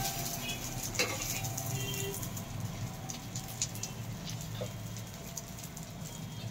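Folded egg omelette frying in oil on an iron tawa, sizzling with fine crackles and spits of oil. There is a single light knock about a second in, from the steel spoon on the omelette and pan.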